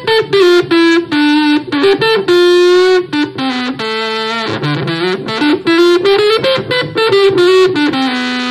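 Electric guitar played through a Malagoli Sound ES-3 fuzz, wah and booster pedal: a loud single-note line with some held notes and slides between them, thick with fuzz overtones.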